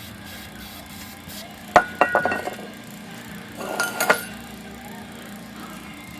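Metal aerosol spray cans being handled on a workbench: a sharp knock, then two short runs of ringing metallic clinks.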